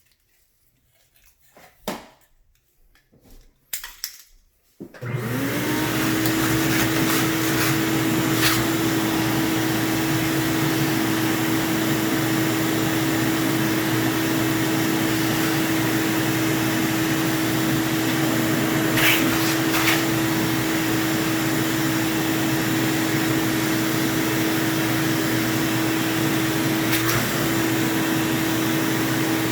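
A vacuum cleaner is switched on about five seconds in, after a few light handling clicks. Its motor spins up to a steady whine and runs on, with a few brief clicks, and its pitch dips for a moment near the end.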